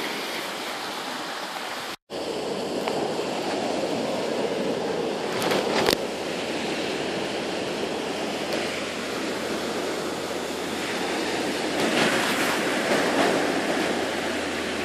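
Sea surf washing on a beach: a steady rushing of waves. The sound cuts out for an instant about two seconds in, and a few sharp clicks come through later.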